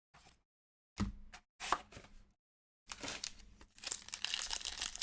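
Foil trading-card pack wrappers being torn open and crinkled: a few short rustling tears, then steady crinkling from about three seconds in.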